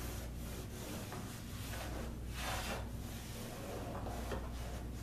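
Hands rubbing and pressing a strip of self-adhesive carpet onto a plywood wall, a series of uneven scuffing swishes, the loudest a little past halfway.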